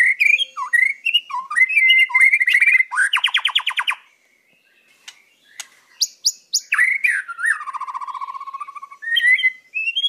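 White-rumped shama (murai batu) singing a varied song of clear whistles, chirps and a fast trill, pausing for about two seconds halfway through before starting again with sharp high notes and a long falling whistle.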